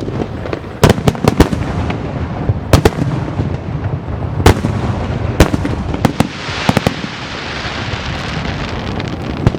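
Aerial firework shells bursting overhead: a series of sharp, irregular bangs, with a long stretch of dense crackling about two-thirds of the way through.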